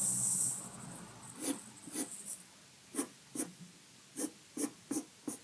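Pencil drawing on paper: one scratchy stroke at the start, then a string of short, sharp strokes spaced unevenly.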